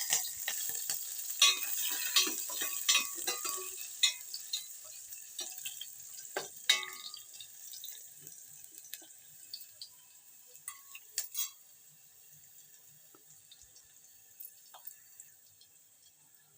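A tempering of mustard seeds, cumin, green chilli, curry leaves and onion pieces sizzling in a spoonful of hot oil, with clicks and scrapes of stirring in the pan. The sizzle is loudest at first and dies away over the first half, leaving only faint, scattered clicks near the end.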